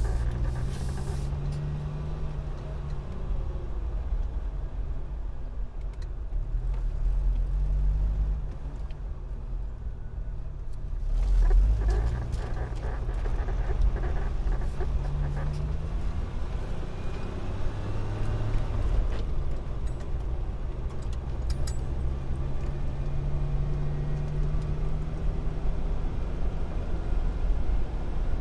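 Car driving along a motorway: steady low road rumble with an engine note that slowly rises and falls, and a brief louder swell about eleven seconds in.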